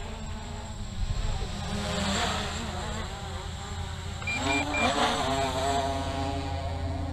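MJX Bugs 3 brushless quadcopter's propellers buzzing in flight, the pitch rising and falling as the throttle changes, loudest as it passes close about two and five seconds in. Three short high beeps sound just after four seconds.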